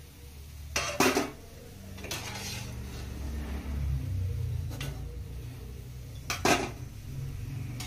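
Perforated metal skimmer clinking against a metal kadai and a metal colander as fried gulab jamun are scooped out of the oil. There are a few sharp clinks, the loudest about a second in and again about six and a half seconds in, over a low steady hum.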